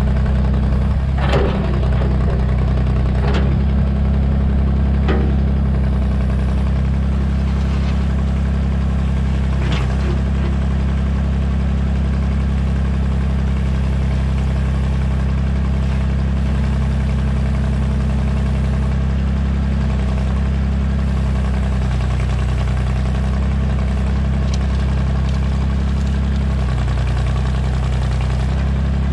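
Excavator engine running steadily under load while its steel bucket digs into rocky clay and gravel. A few sharp clanks of the bucket against stone come in the first ten seconds.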